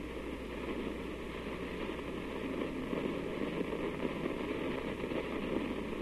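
Steady hiss and crackle of an old 1957 recording's background noise, over a low constant mains hum.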